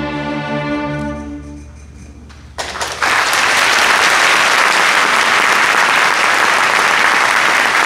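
An orchestra holds a final low chord that dies away about two seconds in. Audience applause breaks out just after and carries on steadily.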